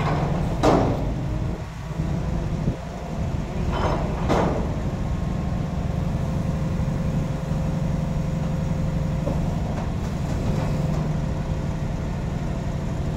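Heavy diesel engine idling with a steady low hum, with three short hissing bursts of air near the start and about four seconds in.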